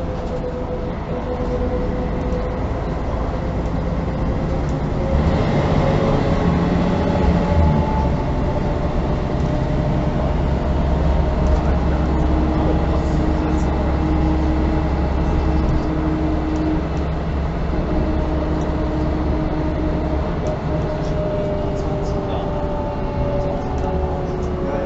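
Mercedes-Benz O405N1 city bus heard from inside its passenger cabin while standing still, the engine running with a low rumble and thin whining tones that slowly rise and fall. The rumble grows louder about five seconds in and eases off again near the end.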